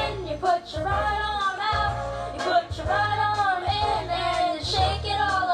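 A song playing, with a woman's voice singing over a bass line.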